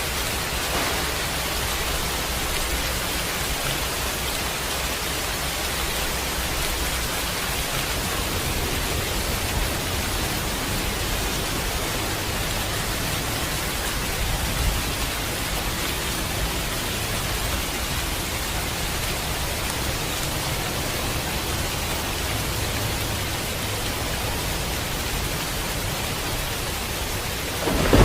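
Steady, even rain falling without a break.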